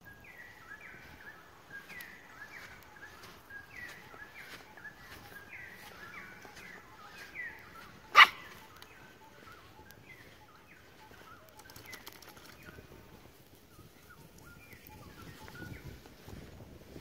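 An animal's short high calls, repeated about twice a second, pausing briefly about two-thirds of the way through. There is one sharp, loud click about eight seconds in.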